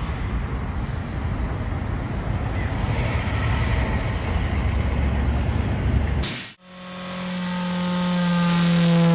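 Live noise-music performance: a dense rumbling roar with hiss, cut off abruptly about six and a half seconds in. A steady droning hum with overtones then takes over and swells.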